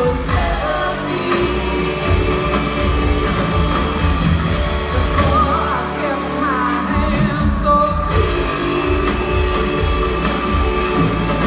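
Live band music: a woman sings the lead over electric guitar, keyboards, drum kit and upright bass. The full band comes in with the bass and drums right at the start.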